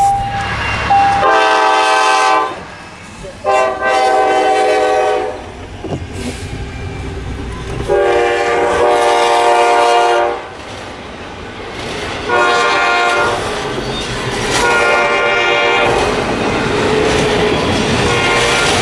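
Norfolk Southern diesel freight locomotive's air horn sounding about five blasts of one to two seconds each for a grade crossing. After the last blast, double-stack intermodal cars roll past with a steady rumble and wheel clatter.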